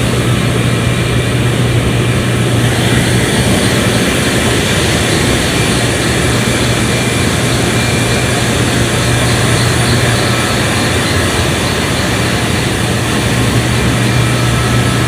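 Steady, loud drone of running power-plant machinery, with a strong low hum under an even roar of noise.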